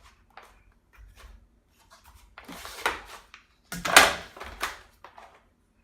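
Plastic expandable side panels being slid onto a window fan's housing: a series of light clicks and knocks of plastic on plastic, the loudest about four seconds in.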